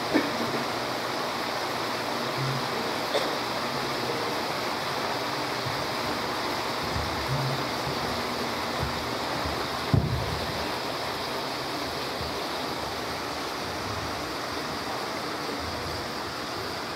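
A steady rushing noise like running water, with soft thumps at the start, briefly about three seconds in, and more strongly about ten seconds in.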